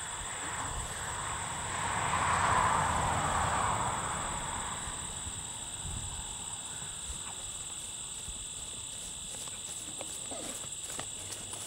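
A horse trotting on grass, its hoofbeats coming through as faint, soft thuds that grow more distinct near the end as it comes close. Early on, a rushing noise swells and fades over a few seconds and is the loudest thing heard.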